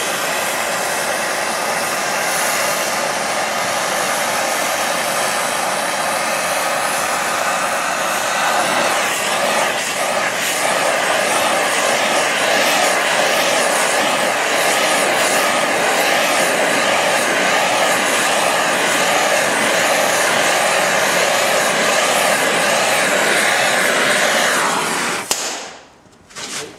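Gas torch flame hissing steadily on the welded joint of a band saw blade, heating the thick weld to temper it after butt welding; a faint wavering tone joins it partway through, and the hiss cuts off suddenly near the end as the flame is taken away.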